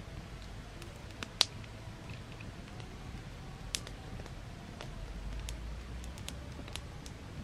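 Open wood fire crackling: scattered sharp pops and snaps, the loudest about a second and a half in, over a low steady rumble.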